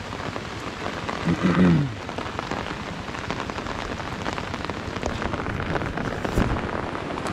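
Steady rain pattering close by, the dense tick of raindrops throughout. A short voice about a second and a half in and a low thump a little after six seconds in.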